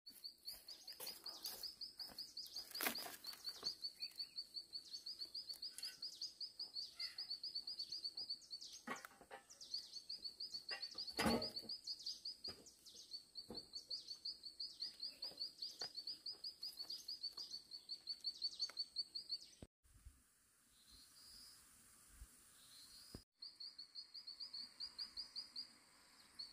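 Forest ambience: a rapid, high chirping repeated in runs of a few seconds over a steady high-pitched drone, with a few sharp knocks, the loudest about eleven seconds in.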